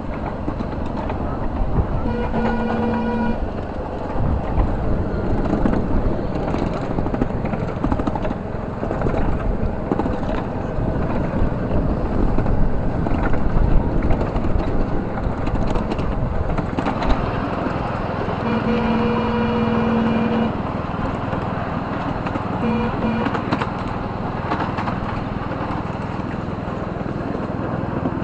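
Miniature ride-on train rolling along its track with a steady rumble. The locomotive's horn sounds three times over it: a one-second toot about two seconds in, a longer two-second toot about two-thirds of the way through, and a short toot soon after.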